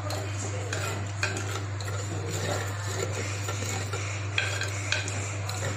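A spoon stirring tamarind rasam that has just come to the boil, with irregular scrapes and light knocks of the spoon against the pot. A steady low hum runs underneath.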